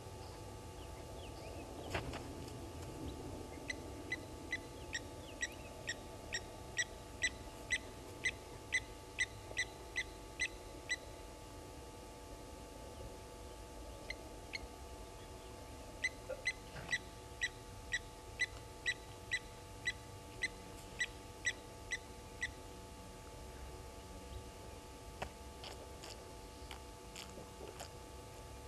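Blacksmith lapwings giving their sharp, metallic 'tink' alarm calls at an African harrier hawk, about two ringing notes a second. The calls come in two runs of some seven seconds each, with a pause between.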